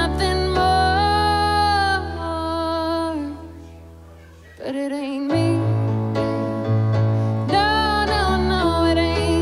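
A woman singing live while playing an electronic keyboard, holding long sung notes over sustained chords and bass notes. About halfway through the music dies away to a short quiet gap, then voice and keyboard come back in.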